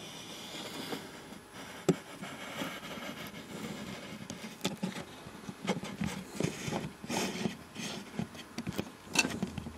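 Small model vehicle moving through a model town, rattling with irregular clicks and scrapes, with a sharp click about two seconds in and another near the end.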